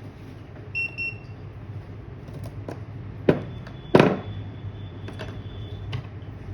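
Two short electronic beeps about a second in, then two sharp knocks of tools and the board being handled on a repair bench, over a low steady hum. A faint high steady tone sets in after the knocks.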